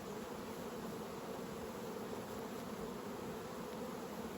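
Swarm of honey bees buzzing steadily around an opened hive.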